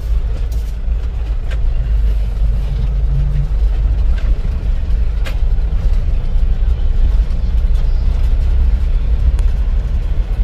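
Steady low rumble of the Isuzu Elf-based 4x4 motorhome driving slowly over a broken, potholed road, heard from inside the cab, with a few sharp knocks and rattles as it goes over the bumps.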